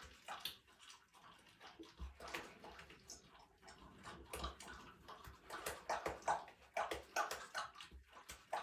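Cougar chewing raw moose meat in a bathroom: a run of short, irregular chewing sounds that comes faster and louder in the second half.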